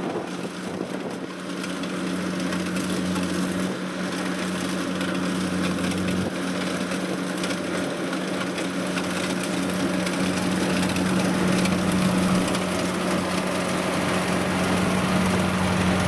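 Kubota DC-70 combine harvester's diesel engine running steadily with a low hum while the machine cuts and threshes rice, the crop giving a dense crackling, crunching noise. The sound grows gradually louder.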